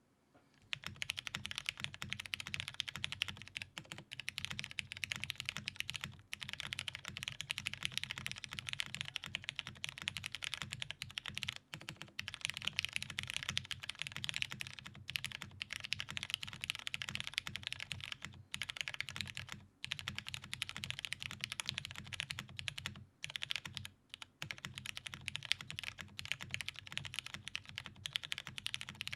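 Steady fast typing on the alpha keys of a Perry KHDD custom keyboard: Cherry MX Brown tactile switches in a top-mounted polycarbonate plate, with GMK keycaps. The typing starts about a second in and breaks off briefly a few times.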